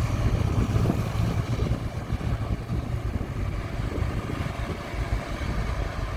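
Heavy construction machine's diesel engine running steadily with a low rumble.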